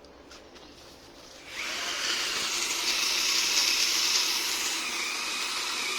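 Chainsaw starting up about a second and a half in and running steadily at speed, a loud high-pitched motor whine.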